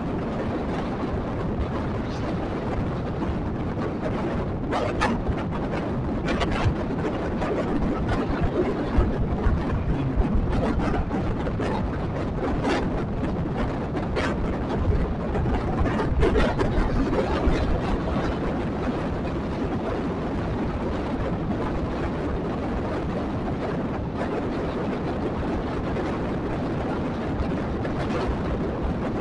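Steady low rumble of wind on the microphone and road noise from a motorcycle travelling along a paved road, with a few brief clicks or rattles between about five and seventeen seconds in.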